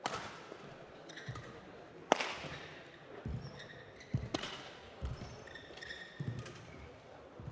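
Badminton rally: three sharp cracks of a racket striking the shuttlecock about two seconds apart, ringing briefly in a large hall, with players' shoes thudding and squeaking on the court between the hits.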